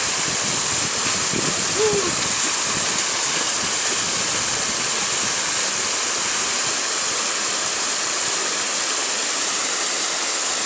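River water flowing over stones, a steady rushing that holds at one level throughout.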